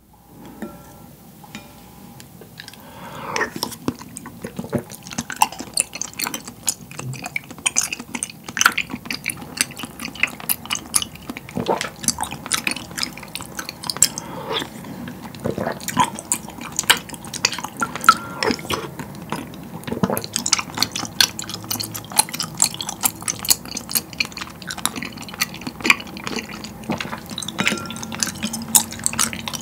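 Close-up eating sounds of taro milk tea with chewy tapioca pearls spooned from a glass bowl with a wooden spoon: wet slurps, mouth smacks and chewing, with a light clink of spoon on bowl. The sounds start about three seconds in and come several times a second.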